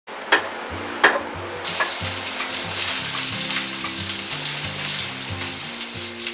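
Sizzling like food frying in hot oil, starting about a second and a half in and lasting to the end, over background music with a steady bass line; two sharp hits sound in the first second.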